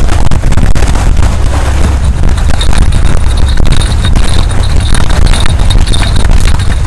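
Strong sea wind buffeting the microphone in a loud, unsteady low rumble, with surf washing over the rocks underneath.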